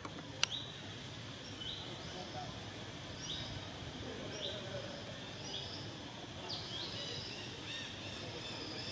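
A bird's short high chirps repeated about once a second over steady outdoor background noise, with a single sharp click about half a second in.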